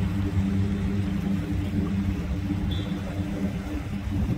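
Single-engine floatplane's propeller engine running at takeoff power as it skims across the water on its floats: a steady, even drone.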